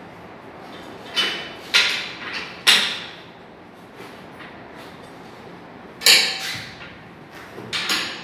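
Sharp knocks and bangs at irregular intervals while a sofa is being assembled: three in quick succession a second or two in, a louder one about six seconds in, and another near the end.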